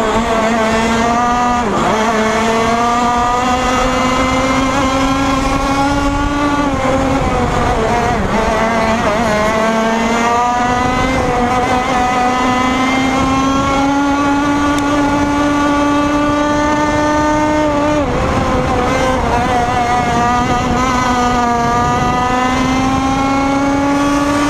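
Racing kart's engine heard from onboard at high revs, its pitch climbing steadily through long pulls on the straights and falling sharply three times as the driver lifts and brakes for corners: about two seconds in, around seven seconds, and around eighteen seconds.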